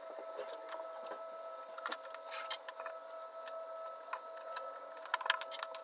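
Light clicks and taps of a phone and small tools being handled on a repair bench, sharpest about two and a half seconds in and again near the end, over a steady mid-pitched electrical hum with a fainter higher tone.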